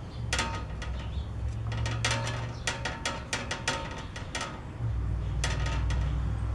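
Dayton metal-cutting band saw running with a steady low hum, during a test run after its lower wheel was pulled out about 1/8 inch to correct the blade tracking. Sharp clicks and rattles come in quick runs for the first four seconds or so, and the hum gets louder about five seconds in.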